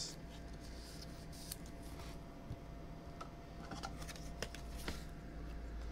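Faint clicks and rustles of a trading card being handled in a clear plastic holder, over a low steady hum.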